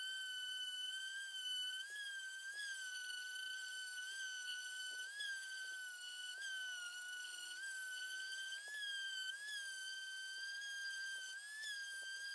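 Electric palm sander running with a steady high whine, its pitch wavering slightly and a few light knocks as it is worked over a wooden box to smooth it.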